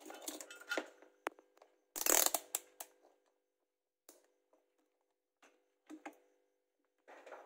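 Clicks and short clatters of small hard objects being handled, the loudest clatter about two seconds in, with a few lighter clicks after.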